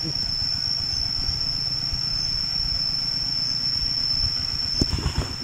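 A steady, high-pitched insect trill, heard over a louder, irregular low rumble from the microphone, with a sharp click near the end.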